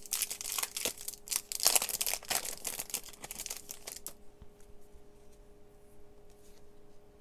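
A foil trading-card pack wrapper crinkling and tearing as it is pulled off the cards and crumpled in the hands, a dense crackle that stops about four seconds in. After that only a few faint soft clicks of the cards being handled.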